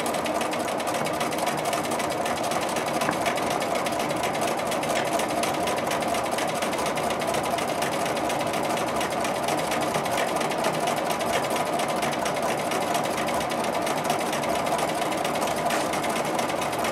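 Bernina sewing machine running steadily at speed, its needle stitching free-motion quilting through the layers of a quilt.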